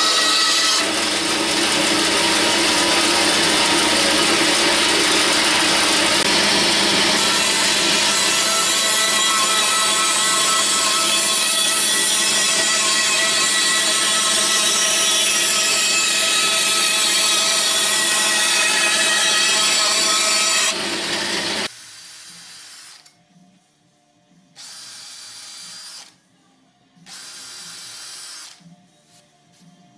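Band saw running and cutting a curve through chipboard, a loud steady whir that stops suddenly about two-thirds of the way through. Then a Makita cordless drill drills into chipboard in two short bursts of about a second and a half each.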